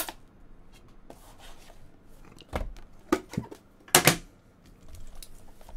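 Cardboard trading-card boxes being handled on a table: a sharp click at the start, then a few knocks and taps, the loudest about four seconds in, as the lid comes off and the inner box is set down.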